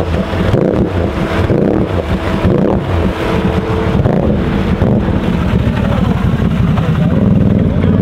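Off-road vehicle engine running and revving, its pitch rising and falling over and over.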